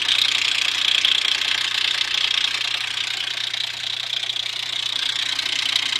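Infiniti FX35's VQ35 3.5-litre V6 running steadily with a fast knocking clatter from the timing chain. The owner takes it most likely for the chain guide; the chain tensioner had backed out and broken the tensioner shoe and the guide.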